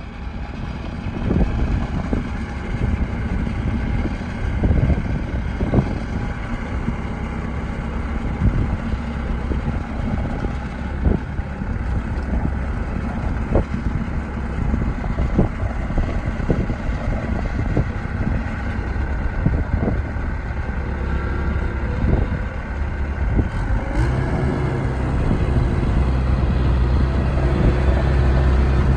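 Mini excavator diesel engine running steadily, with scattered knocks and clanks from the machine. About 24 seconds in, the engine note rises and grows louder.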